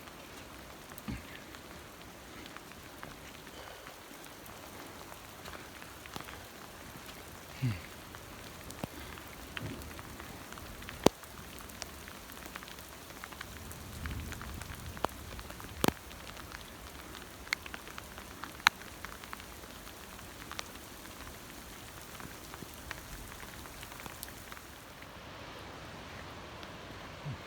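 Steady rain hiss with scattered sharp drop clicks close by, the loudest about eleven, sixteen and nineteen seconds in, and a few soft low thumps.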